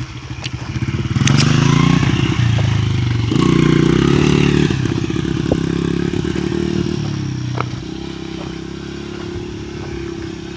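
Honda XR70's small single-cylinder four-stroke engine revved hard twice, then settling to a lower, steadier run. The engine is worn out from being over-revved and badly needs a rebuild.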